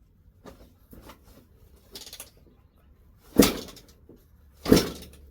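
The kick-starter of a 2002 Suzuki RM250 two-stroke dirt bike being kicked over, the engine not catching: a few faint knocks, then two loud thumps about a second and a half apart, each with a short rattling tail.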